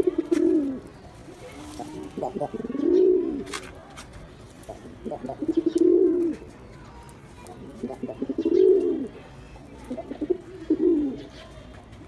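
Male domestic pigeon cooing, five phrases about every two and a half to three seconds. Each phrase is a few short clipped notes running into a longer coo that rises and falls.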